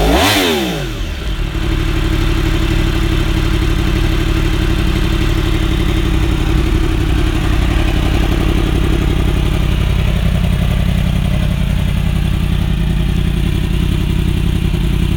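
2015 Yamaha R1's crossplane inline-four through a Graves exhaust: a rev drops away in the first second, and the engine settles into a steady idle.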